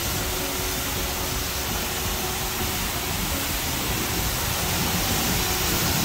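Self-serve car wash pressure-washer wand spraying water: a steady, loud hiss of spray that cuts off suddenly at the very end.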